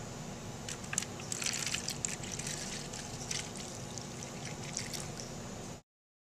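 Liquid candle wax trickling and splashing from a metal pouring pitcher into wax pie crusts in foil tins, over a steady low hum. The sound cuts off abruptly near the end.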